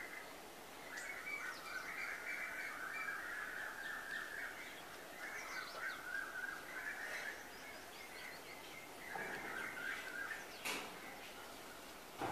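A small flock of house sparrows chirping and chattering in quick, overlapping calls, coming in several stretches with short pauses between. One sharp click comes near the end.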